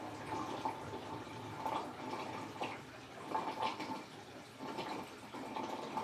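Toshiba Star Crystal Drum washing machine draining its wash water: a steady trickle with irregular gurgles, plops and drips as the water runs out of the tub.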